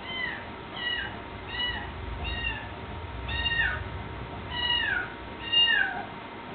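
Siamese kitten meowing repeatedly: about seven short, high meows, each falling in pitch, the last three longer with a deeper downward slide.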